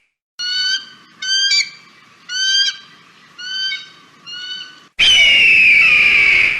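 Hawk calls: a series of five short, harsh call notes, each a little fainter than the last, then about five seconds in a loud, long scream falling in pitch.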